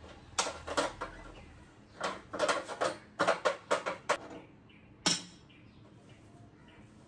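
A cloth scrubbing over a stainless-steel gas stove top, making a series of short scrapes and knocks against the metal, some in quick strokes a few per second, with one sharper knock about five seconds in.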